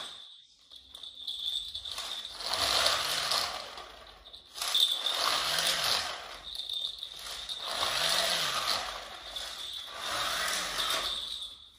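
Motorised plastic toy whirring through its gears in four repeated swells, about two and a half seconds apart, each rising and falling in pitch, over a steady high whine.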